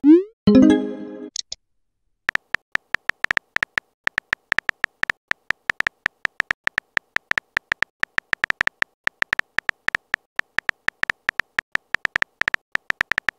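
Chat-app sound effects. A quick rising swoosh and a short pitched pop open the stretch, followed by a long run of rapid keyboard-tap clicks, several a second, as a message is typed out.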